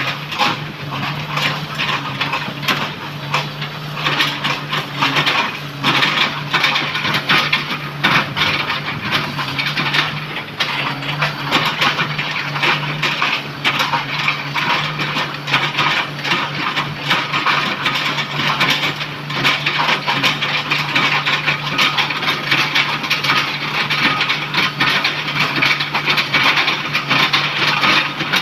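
Komatsu PC200 excavator's diesel engine running steadily under load while its bucket crushes and chops oil palm trunk, a dense run of wood cracking and snapping over the engine.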